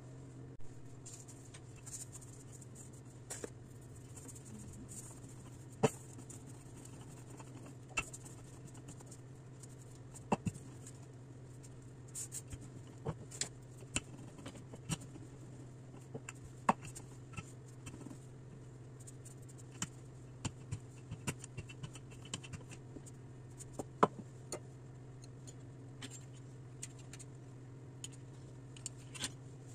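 Scattered light knocks, taps and scrapes of kitchen utensils on a granite countertop as dough is rolled out with a wooden rolling pin and cut around a glass lid with a pizza cutter, over a steady low hum. The sharpest knocks come about 6 s and 24 s in.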